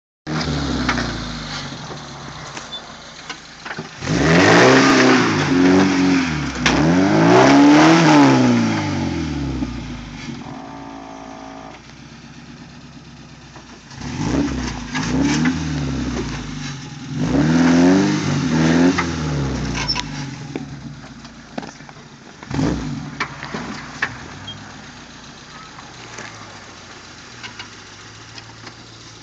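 Suzuki SJ413's 1.3-litre four-cylinder engine revving in repeated bursts, pitch rising and falling as it climbs a steep rocky trail, easing back toward idle between pushes. A few sharp knocks come through in the second half.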